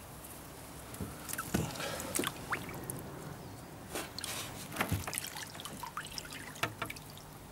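Water trickling and splashing as fish are lifted in a landing net and handled in a water-filled box, with several short knocks and clicks.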